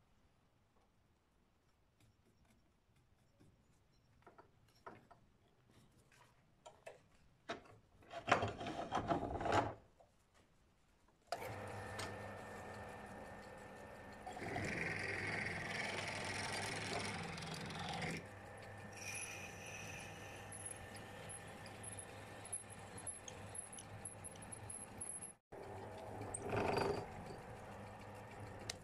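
Small clicks and handling of a drill bit and keyless drill chuck, then a short loud rasping burst. About eleven seconds in, the wood lathe motor starts and runs with a steady hum and whine, while a drill bit in the tailstock chuck bores into the end of the spinning wood blank, scraping louder for a few seconds at a time.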